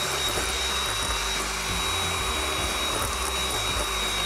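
Electric hand mixer running steadily, its beaters whisking egg whites as sugar is added for meringue: an even motor whir with a thin, steady high whine.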